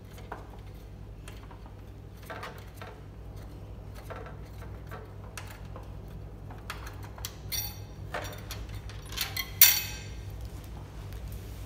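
Small metal clicks and scrapes of a hex key working a screw on the underside of a Canon TM-series plotter, getting busier after about six seconds, with a sharp click about nine and a half seconds in. A steady low hum runs underneath.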